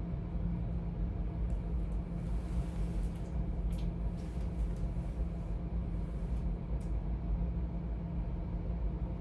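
Steady low hum in a small room, with a few light clicks and taps of charging cords and plugs being handled.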